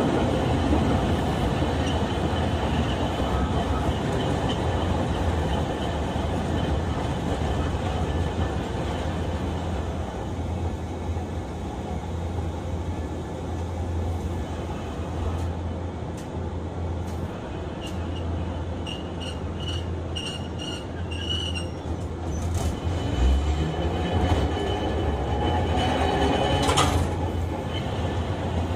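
Onboard running sound of a Hiroshima Electric Railway 1900-series tram, car 1905, travelling on street track: a steady rumble of wheels and motors. It is broken by a run of short high squeaks about two-thirds of the way through and a brief high squeal near the end.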